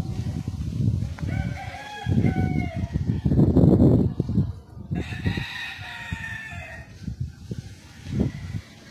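A rooster crowing twice, about a second in and again about five seconds in, the second call longer and held. Both crows sit over a loud, uneven low rumble.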